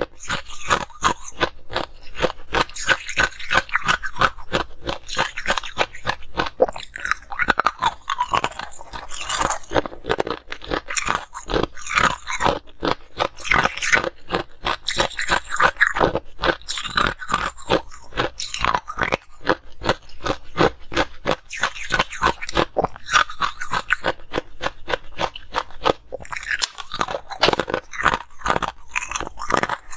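Ice being bitten and chewed, close-miked: a rapid, continuous run of sharp crunches and cracks as pieces of frozen ice break between the teeth.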